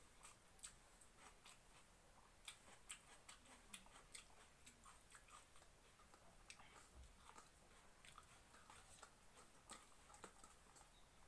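Faint eating sounds, near silence overall: soft scattered clicks of chewing and of fingers mixing cooked rice in a steel bowl.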